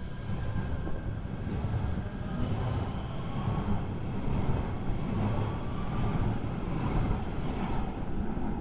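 A train running on rails: a steady low rumble with faint thin high tones above it.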